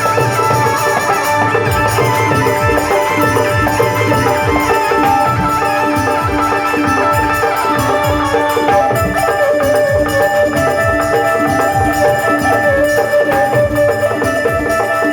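Instrumental Rajasthani folk music: sustained melody tones held over a steady, busy hand-percussion beat.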